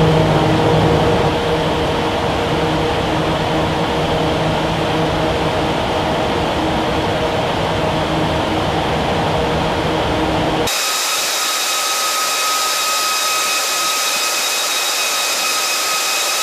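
Wall of Wind test fans (twelve 700-horsepower fans) driving hurricane-force wind of about 95 to 105 mph: a steady roar with a low fan hum. About ten and a half seconds in the sound changes abruptly to a thin, high whine with several steady tones and the low roar gone.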